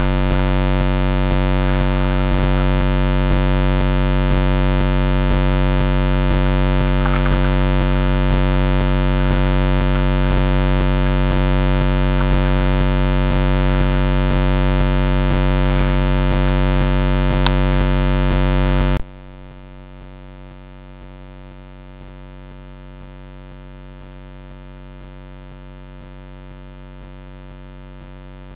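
Steady electrical hum with a stack of even overtones, picked up by a trail camera's own electronics rather than anything in the scene. About two-thirds of the way through it drops suddenly to a much fainter level and carries on steadily.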